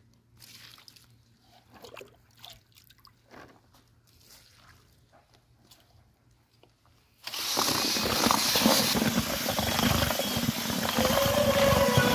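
Water is poured in splashes onto dry groundbait in a plastic tub. About seven seconds in, a cordless drill with a paddle mixer starts and runs loud and steady, churning the damp crumb around the tub.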